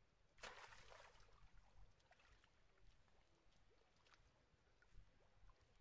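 A young monkey splashes into water about half a second in, followed by a few fainter splashes from monkeys swimming and paddling.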